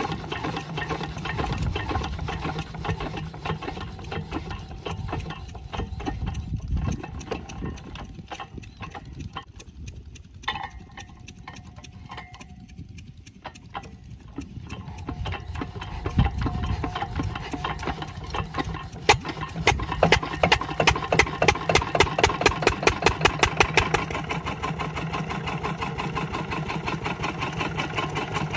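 8 hp single-cylinder diesel engine of a water pump set, hard to start: it runs unevenly and fades almost out about a third of the way in. It picks up again from about halfway, beating hard and fast for a few seconds, then settles into steady running.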